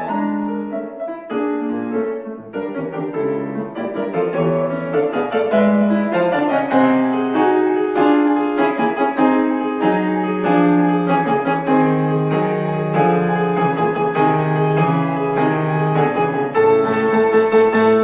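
Solo piano playing a classical piece, the texture growing fuller and louder a few seconds in.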